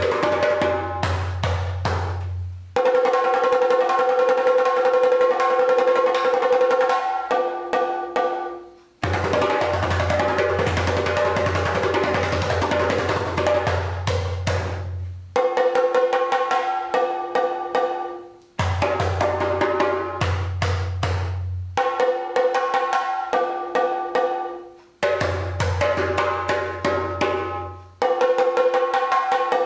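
Djembe and chenda drums taking turns in a call-and-response exchange. Hand-struck djembe phrases with deep bass tones alternate every few seconds with rapid stick-beaten chenda passages.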